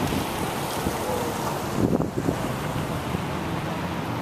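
Wind buffeting the microphone: a steady rushing noise with a stronger gust about two seconds in.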